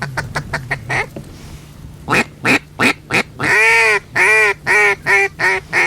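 Mallard duck call blown by a hunter: a quick run of short clucks, then a string of loud quacks, one of them long and drawn out about three and a half seconds in.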